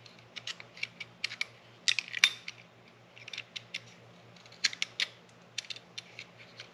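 A utility knife blade shaving and scraping at a small hard plastic part, carving a slot for a metal key: a scattered run of short, sharp scrapes and clicks in irregular clusters.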